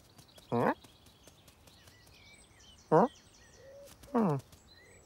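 Cartoon cat's voice making three short meows, each falling in pitch, over faint garden birdsong.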